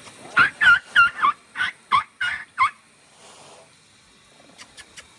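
An animal call: a quick series of about nine short, pitched notes over a little more than two seconds, loud and close.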